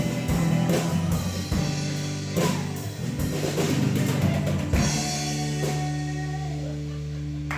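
Live band with drum kit and guitar playing the closing bars of a rock song: drum hits over the chords, then a last chord held and left ringing from a little past halfway.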